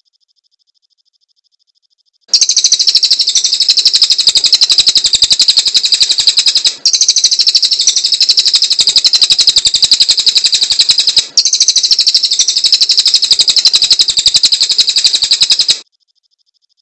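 Cililin bird singing a very fast, high-pitched trill of rapidly repeated notes. It starts about two seconds in and runs as one long trill with two brief breaks, before stopping shortly before the end.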